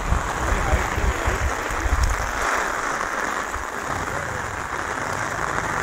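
Steady rain falling, a dense even hiss, with low rumbling buffets on the microphone during the first couple of seconds.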